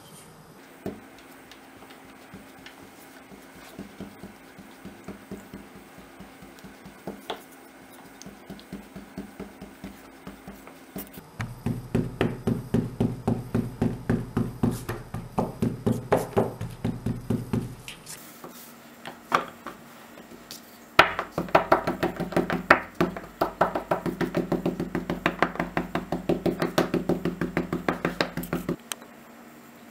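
Rapid, even tapping as a pointed tool is pressed again and again through a round of bread dough against a wooden board, pricking in a decorative pattern. The taps are soft and sparse at first, then come in two louder, quick runs of about six a second with a short pause between.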